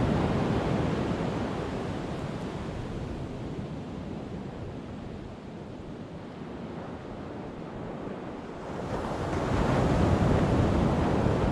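Ocean surf washing onto the beach, easing off after the start and surging louder again about nine seconds in, with wind on the microphone.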